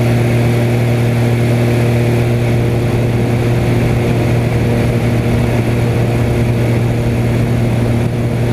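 Extra 300 aerobatic plane's engine and propeller droning steadily, heard from inside the cockpit, the pitch unchanged while the plane rolls.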